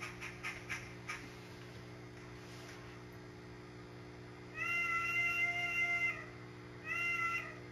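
Sound decoder of an N-scale steam locomotive blowing its high-pitched chime whistle through its tiny speaker: a long blast about halfway through, then a short one near the end. The whistle sounds like a dying animal.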